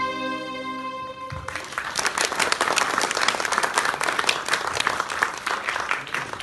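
The music's last held chord fades out, and about a second and a half in an audience breaks into applause that thins out near the end.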